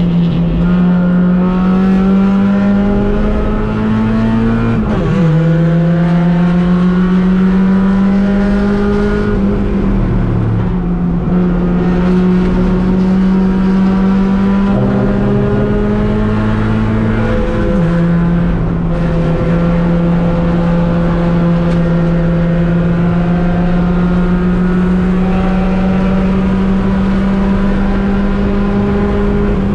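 Race car engine heard from inside the car, running hard at high revs with the pitch holding or slowly climbing. The pitch drops sharply about five seconds in and again near eighteen seconds as it shifts gear, with a smaller dip around ten seconds.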